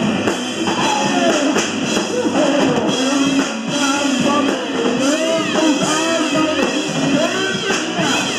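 Rock band playing loudly: electric guitar and drums, with a lead line swooping up and down in pitch.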